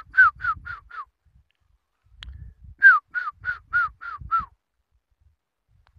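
Two runs of short, falling call notes, about three a second, each run six or seven notes long, with a low rumble under them.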